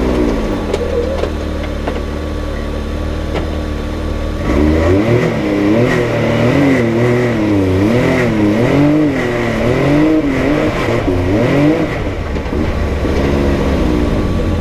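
Side-by-side UTV engine running, then revved up and down over and over for several seconds, with the pitch rising and falling repeatedly, before it settles near the end.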